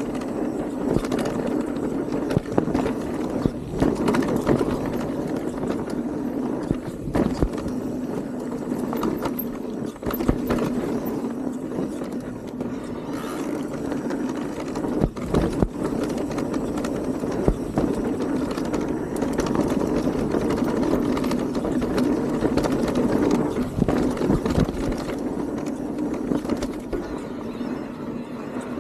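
E-mountain bike riding a dirt trail: steady tyre and drivetrain noise, broken by frequent knocks and rattles as the bike goes over bumps.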